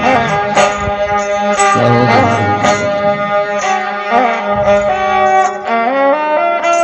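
Instrumental interlude of Rajasthani folk devotional music: a bowed string melody stepping between held notes, with a sharp percussive strike about once a second.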